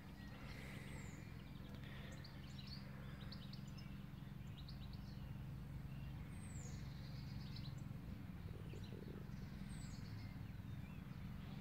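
Quiet outdoor background with faint birds chirping, including a few short falling whistles, over a low steady hum.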